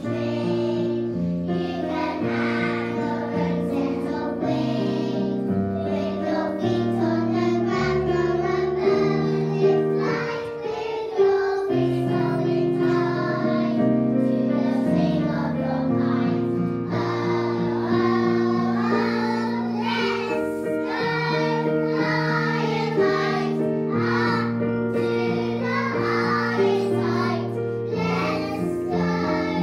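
A group of young children singing a song together in unison over an instrumental accompaniment.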